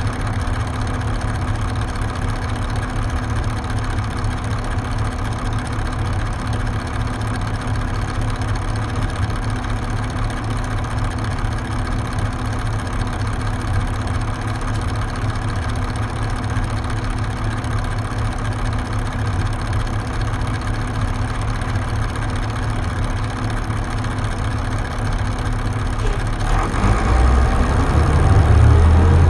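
The Detroit Diesel Series 40 straight-six diesel of a 2001 New Flyer D40LF transit bus idling steadily. Near the end it revs up and rises in pitch as the bus pulls away.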